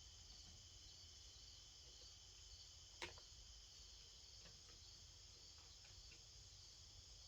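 Faint, steady high-pitched chirring of insects, with one sharp click about three seconds in and a few fainter ticks.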